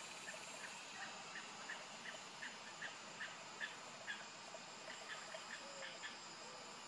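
A bird calling in an even series of short, high chirps, about three a second, which stops about a second before the end. A steady high insect drone runs underneath.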